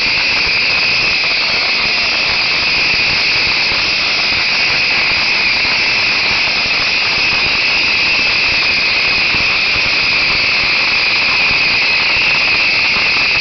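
Massed rockets of a Yanshui beehive fireworks barrage firing without a break: a loud, steady, dense crackling hiss, strongest in the high pitches.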